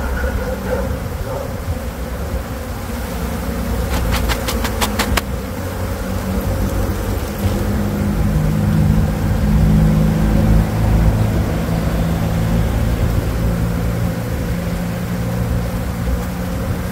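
Honeybee colony buzzing, a loud steady hum from the mass of bees being worked out of the wall cavity, swelling somewhat in the middle. A quick run of sharp clicks about four seconds in.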